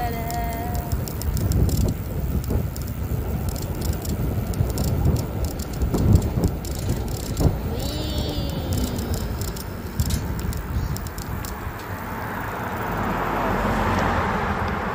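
Wind buffeting the microphone of a bicycle ride, gusty and uneven. Road noise from an approaching car swells over the last few seconds.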